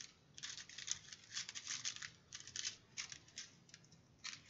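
Small plastic zip bags of diamond-painting drills crinkling and rustling as they are picked up and handled, in quick irregular crackles with a short pause near the end.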